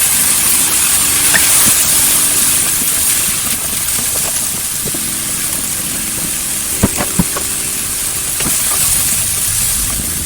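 Fried rice sizzling steadily in a hot pan just after soy sauce goes in, with two sharp clicks of a spatula against the pan a little past the middle.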